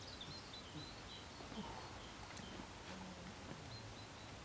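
Faint background hiss with a small bird chirping in short, high notes every half second or so.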